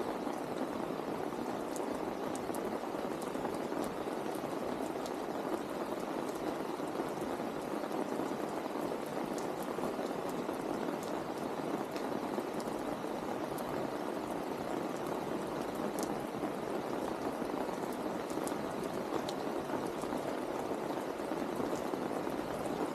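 Steady rain falling, an even dense patter with scattered sharper drop ticks.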